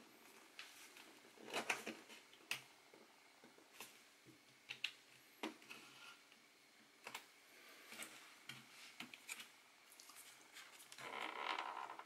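Scattered light clicks and taps of hands handling and prying at a laptop's plastic bottom cover on a desk, with a short rustle near the end.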